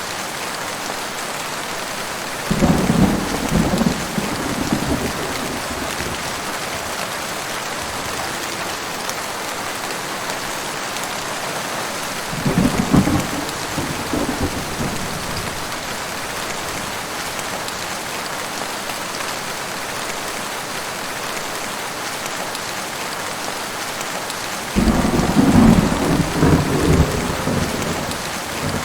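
Heavy rain falling steadily, with three rolls of thunder: one about two and a half seconds in, one about twelve seconds in, and a longer, louder one about twenty-five seconds in.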